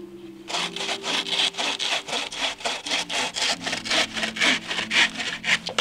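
Wooden-framed bucksaw cutting through a dead log by hand, with quick, even push-and-pull strokes that start about half a second in.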